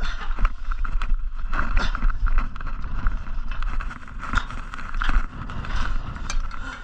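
Wind buffeting the microphone, a steady low rumble with a hiss over it and scattered faint clicks and knocks.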